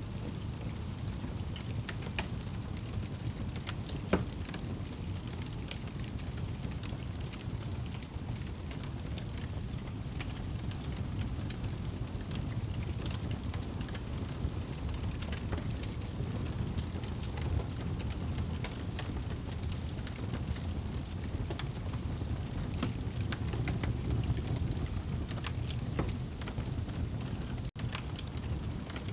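Wood fire burning in a fireplace: a steady low rumble of flames with scattered crackles and pops, one louder pop about four seconds in. The sound cuts out for an instant near the end.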